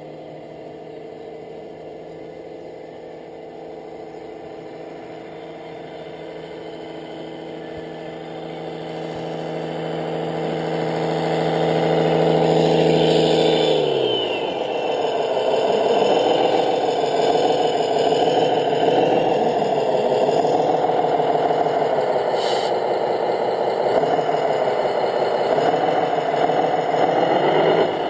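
Engine sound of radio-controlled Scania model trucks, running steadily and growing louder as the log truck comes up close. About halfway through the pitch drops, then rises and falls as the trucks manoeuvre past each other.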